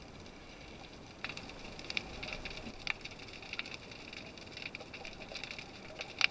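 Underwater ambience picked up by a camera in its housing: a faint steady hiss for about a second, then irregular crackling and sharp clicks, with one loud click near the end.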